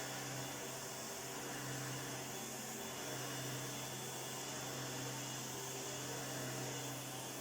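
1988 Electrolux 612 upright vacuum cleaner running steadily, its restored motor giving a constant low hum under an even, airy hiss.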